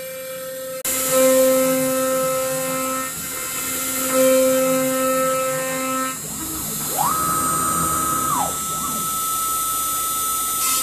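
CNC router milling an MDF blank, its spindle and bit running with a steady whine that grows and eases as the cut loads and unloads. It steps up sharply about a second in, and near the end a higher whine rises, holds for about a second and drops back.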